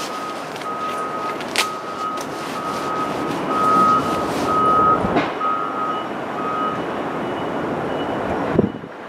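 A repeating electronic warning beep at railway tracks, a little over one beep a second, stopping after about seven seconds, over the steady rumble of a train approaching on the Tokaido Line. Near the end there is a sharp knock, then the sound drops off suddenly.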